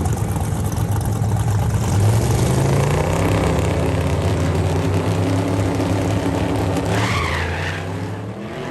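Drag race cars' engines running loud and hard, the engine note slowly rising in pitch, then fading near the end.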